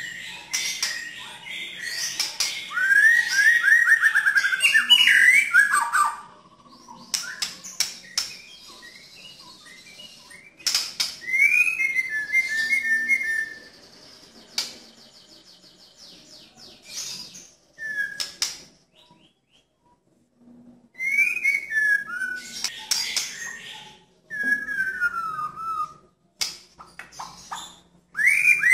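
White-rumped shama singing in bursts, loud whistled phrases that slide up and down, mixed with rough, rasping notes. Short pauses fall between the phrases.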